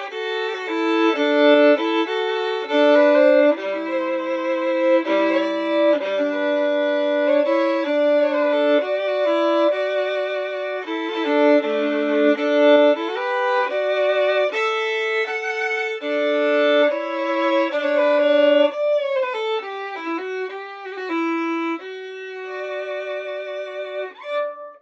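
Solo violin, a Cremona-made Stradivari-model instrument by Georgi Nikolov, bowed in a melody of sustained notes with vibrato and occasional double stops, the last note dying away near the end.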